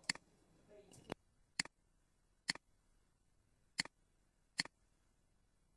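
Computer mouse clicking: six short, sharp clicks at uneven intervals, faint against quiet room tone.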